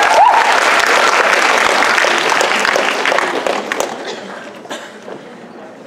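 Audience applauding and cheering in an auditorium at the end of a dance number, loud at first and dying away over the last couple of seconds.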